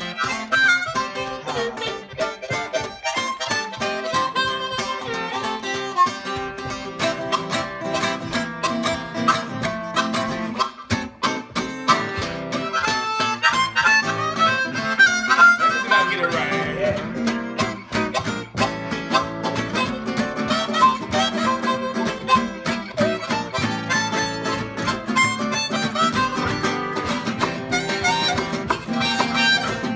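Harmonica and acoustic guitar playing a country blues rag together, the harmonica carrying the melody over the guitar's picked accompaniment.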